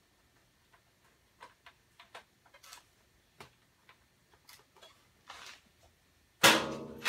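Scattered light clicks and taps of hands working around a benchtop CNC mill. About six and a half seconds in comes a loud metal clank that rings briefly as the mill on its stand is taken hold of.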